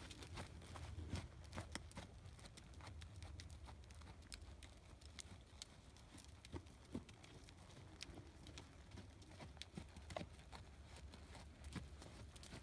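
Faint hoofbeats of a paint horse trotting on soft arena sand, as scattered soft thuds and light ticks. They are fainter in the middle and louder again near the end.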